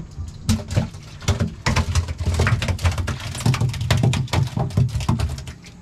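Rapid, irregular knocks, slaps and low thumps on a fiberglass boat deck, several a second, as fish and gear are handled around a livewell and bucket.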